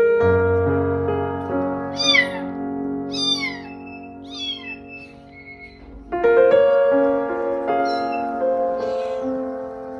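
Cat meowing over piano background music: three high meows falling in pitch, about a second apart, then more meows near the end as a kitten calls.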